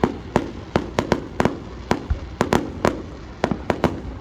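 Aerial fireworks going off in a rapid, uneven volley of sharp bangs, about three or four a second.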